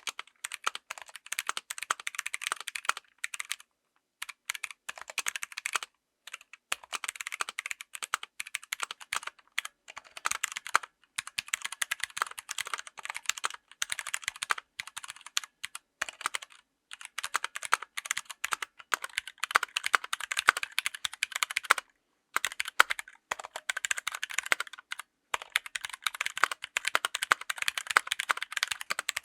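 Typing on a full-size mechanical keyboard fitted with tactile switches: fast runs of keystrokes clicking and clacking, broken by several short pauses.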